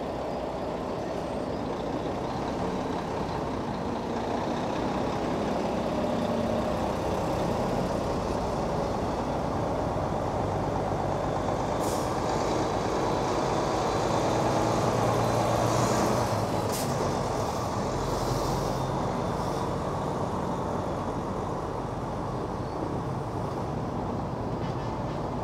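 Heavy diesel trucks, Mack prime movers among them, driving slowly past one after another. The engine rumble swells as a truck passes close about halfway through, and there are short air-brake hisses around the same time.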